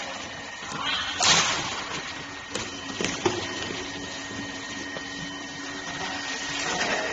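A badminton shuttlecock feeding machine runs with a steady hum while shuttles are launched and struck by a racket, giving a few sharp hits, the loudest about a second in and others around two and a half and three seconds.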